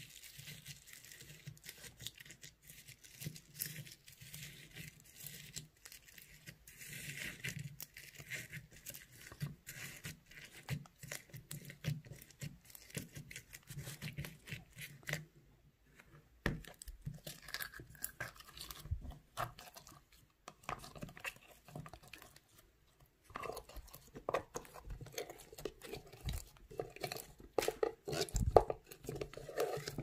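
Fingers stirring and pressing foam beads in a tub of slime: a dense, fine crackling and crunching of the beads. From about two thirds of the way in, louder squishes and pops as the slime itself is worked and pulled from the tub.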